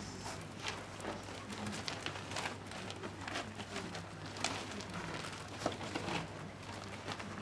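Puppies moving about on pellet bedding: scattered soft crackles and rustles of shifting pellets over a faint steady low hum.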